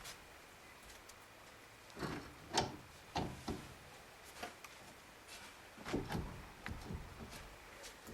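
Scattered light knocks and clunks as the car's steering knuckle is turned by hand and its parts are handled, about seven short knocks spread over a few seconds.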